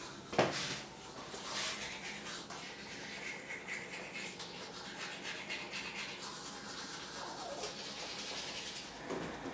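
A toothbrush scrubbing teeth in quick back-and-forth strokes, a soft scratchy rasp, with a single thump just after the start.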